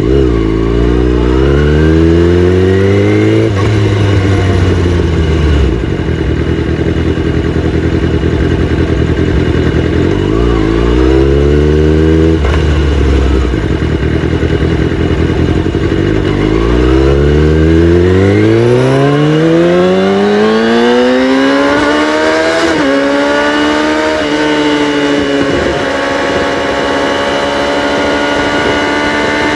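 Kawasaki ZX-6R inline-four motorcycle engine with the catalytic converters deleted, its exhaust climbing in revs and falling back sharply twice, then making a long climb and holding high revs near the end.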